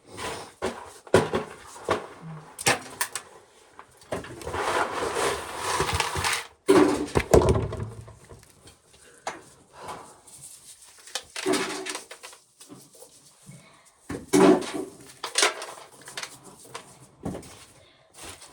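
Hand work on dry ears of corn: repeated knocks and clatter as ears and kernels are handled and dropped into containers, with stretches of dry rustling.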